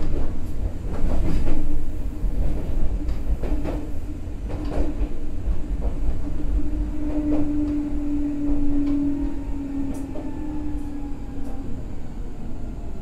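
Meitetsu 6000 series electric train running: a steady low rumble and a motor and gear hum that falls slightly in pitch in the second half, with irregular sharp clicks of the wheels over rail joints.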